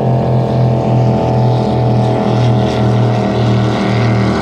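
Speedboat engine running steadily at speed, with a deep, even drone that pulses about twice a second.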